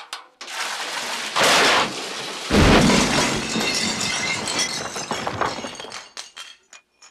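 A long, loud crash of breaking glass and falling debris. It starts with a burst, has two heavier impacts about one and a half and two and a half seconds in, and rattles on for several seconds. Pieces keep clattering down as it settles near the end.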